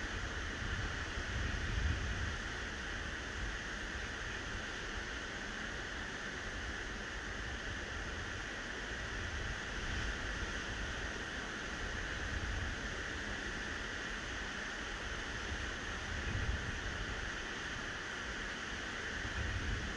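Steady hiss of sea surf breaking on a sandy beach, with wind buffeting the microphone in low rumbling gusts, the strongest about two seconds in and near the end.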